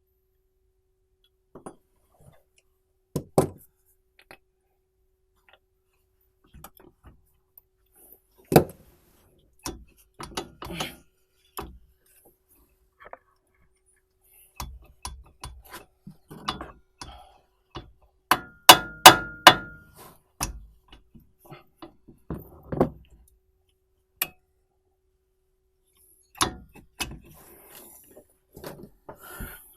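Hand tools knocking and clinking against the metal of a car's brake caliper during guide-pin work, as scattered single knocks and clicks with pauses between them. About two-thirds of the way in comes a quick run of five or six sharp metal strikes with a brief ringing tone, the loudest sounds here.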